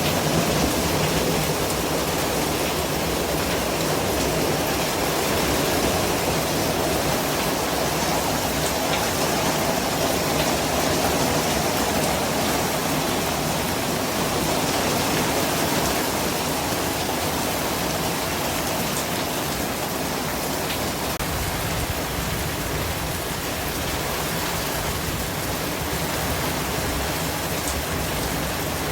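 Steady white-noise track: an even, unbroken hiss spread from low to high pitches, with a faint grainy texture like steady rain.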